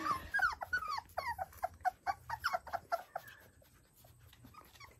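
Four-week-old Labrador retriever puppies whimpering in a quick run of short, high, falling squeaks, several a second, that thin out and fade about three seconds in.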